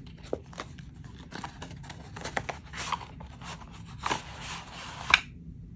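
A cardboard album box being handled and opened: the album sliding out of its card outer box with scraping and rustling, amid many light taps and clicks on the card. A sharp click about five seconds in is the loudest sound.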